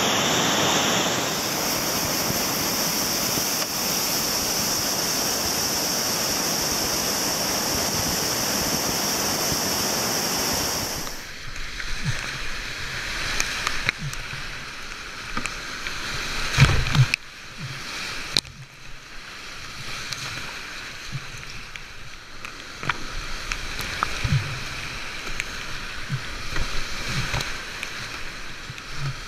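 Whitewater on a steep river slide, a loud, steady rush heard from the bank. About eleven seconds in it cuts to a camera on the kayaker, where the sound turns quieter and choppier: rapids rushing and splashing around the kayak, with a few dull thumps.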